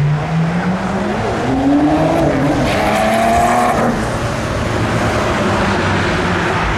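Porsche 911 Turbo's flat-six engine accelerating hard, its pitch climbing through the revs over the first couple of seconds. The engine note fades into road noise after about four seconds as the car pulls away.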